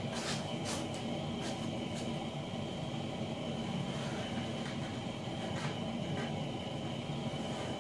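Workshop heater running with a steady hum and a thin, constant high whine, with a few light clicks from work at the bench.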